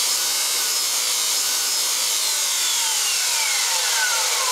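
Motenergy ME-1003 brushed DC motor of an electric motorcycle, revved with no chain or load: a high whine over a steady rushing noise, falling slowly in pitch as the motor spins down, then rising again near the end as the throttle is opened. Run up hard like this, its brushes arc over at full throttle.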